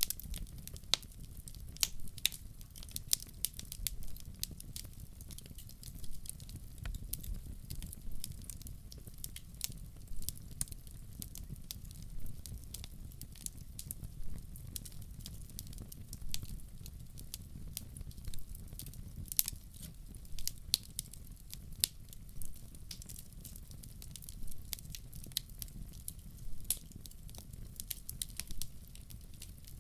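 Fire in a fireplace crackling, with many irregular sharp pops and snaps over a low steady rumble of flame.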